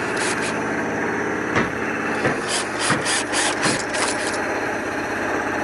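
A motor runs steadily throughout. Over it come a few quick clicks near the start, then a fast run of sharp clicks with several knocks from about two and a half to four seconds in.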